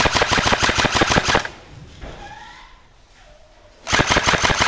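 Airsoft electric rifle firing long, rapid full-auto bursts of sharp, evenly spaced clacks. One burst stops about a second and a half in, and another starts near the end.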